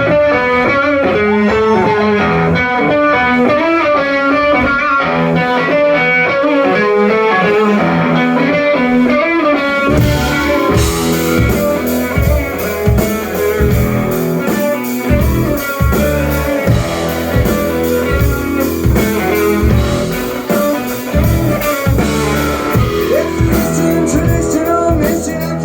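Live rock band: a guitar plays a picked riff alone, then drums and bass come in about ten seconds in and the full band plays on.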